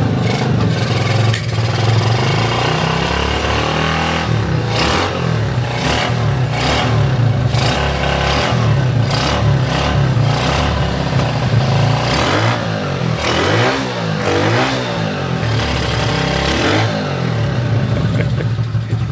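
Honda C90's small single-cylinder four-stroke engine running as it warms up, its revs rising and falling several times, most of all in the last third.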